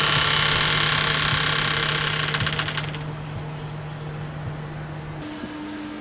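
A motor-driven machine running loudly for about the first three seconds, its noise then dropping away to a steady lower hum whose pitch steps up about five seconds in.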